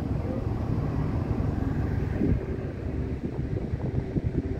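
Wind buffeting a phone microphone on an open ship's deck: an unsteady low rumble, with a steady machinery hum underneath.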